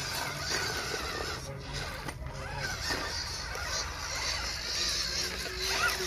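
Scale RC crawler trucks driving over creek rocks, their small electric motors and gearboxes whining, the pitch rising and falling as the throttle changes.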